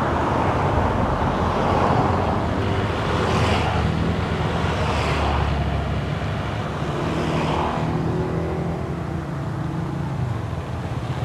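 Farm tractor's diesel engine running steadily as it pulls a rotary tiller through a field.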